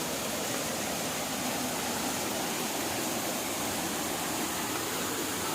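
Steady, even rush of water falling at a waterfall.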